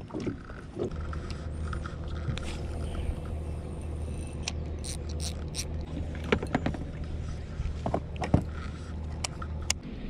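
Small outboard motor on a boat running at a steady low hum, which stops just before the end, with scattered clicks and knocks of gear being handled in the boat.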